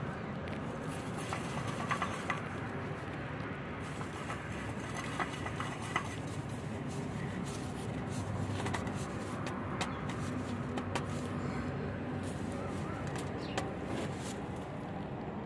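Light clicks and scrapes of a new spin-on oil filter being screwed onto the engine by a gloved hand, over a steady background of outdoor noise.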